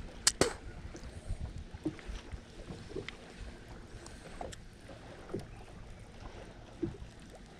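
Water lapping and knocking softly against a fishing boat's hull, with a pair of sharp clicks about a third of a second in and a few light knocks after.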